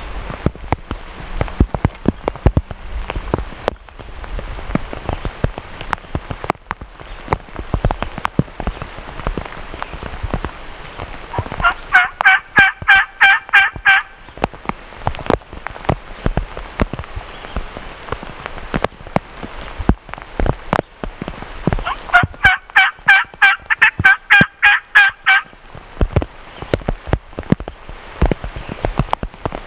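Two loud runs of rapid, evenly spaced turkey calls, each lasting two to three seconds, about ten seconds apart. Steady rain falls throughout, with drops tapping sharply close by.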